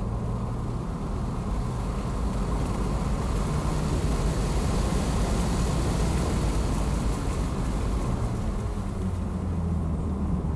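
Wind and tyre noise inside a 2021 Tesla Model S Plaid's cabin with the front windows open at track speed, a deep rumble under a rushing hiss. The hiss grows as the car accelerates and fades near the end as it brakes for a corner.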